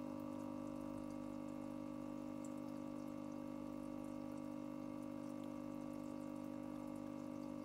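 Aquarium air pump humming steadily as it drives a sponge filter, with air bubbles burbling up through the tank water.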